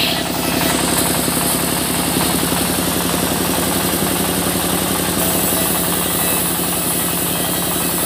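Band sawmill's engine running steadily at a constant speed, the saw turning between cuts.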